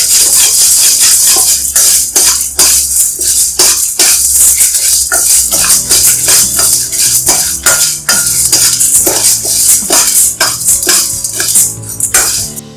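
A steel spatula scrapes and stirs dry lentils (toor and chana dal), red chillies and curry leaves around a stainless steel kadai, with quick, irregular scraping and rattling strokes. The seeds and dal rattle against the metal as they roast.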